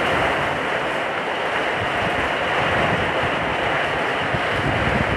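Heavy rain and hail pouring down, a dense steady hiss.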